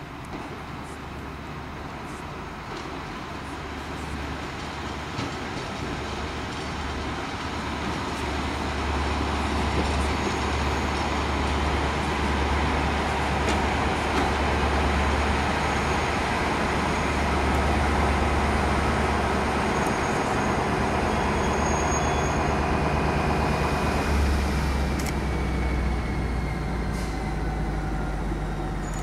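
BB 67300-class diesel locomotive (67340) approaching at low speed with a train of passenger coaches, its engine running with a deep steady hum that grows louder as it nears. The engine note shifts about three-quarters of the way through, followed by a thin falling squeal near the end.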